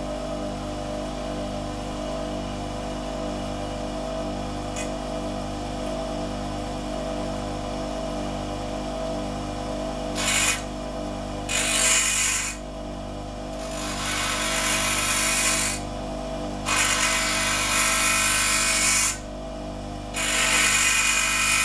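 Bench grinder motor running steadily with a hum. From about halfway through, a nail is pressed against the spinning wheel in about five grinding passes, each a loud hissing grind that stops when the nail is lifted away.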